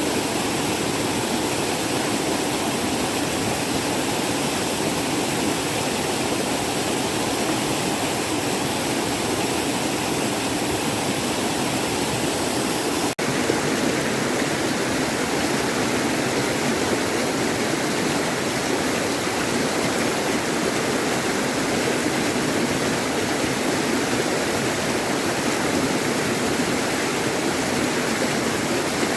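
Mountain stream rushing steadily over rocks, with a momentary break about thirteen seconds in before it carries on.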